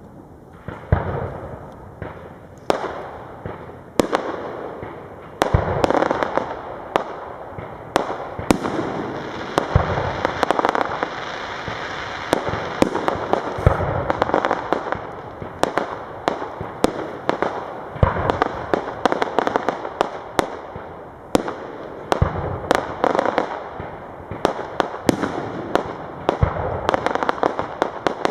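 Aerial fireworks display: shells bursting in many sharp bangs, irregularly spaced and often several a second, over a continuous noise of further bursts.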